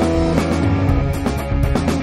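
Background rock music with guitar and a steady drum beat.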